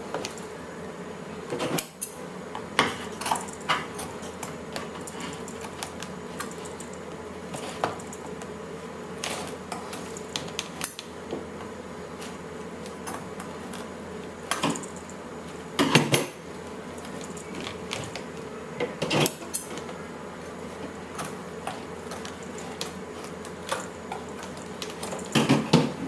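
Metal sewing scissors snipping and clicking at irregular intervals as they cut through a toy's fur covering, with a steady faint hum underneath.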